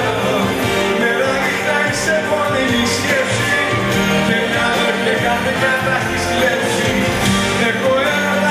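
Live band playing Greek popular music, amplified through the sound system in a large hall.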